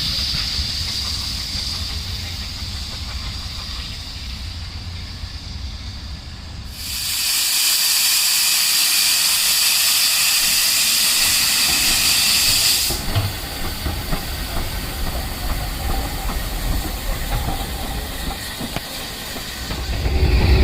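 Steam locomotive Holly Bank No.3 with a low rumble, then a loud, steady hiss of escaping steam that starts abruptly about a third of the way in, lasts about six seconds and cuts off suddenly, before the low rumble returns with faint clicks.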